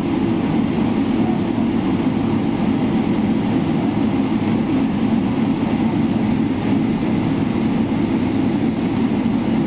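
Steady low cabin rumble inside a Boeing 777-300ER as it taxis on the ground, its engines running at taxi power.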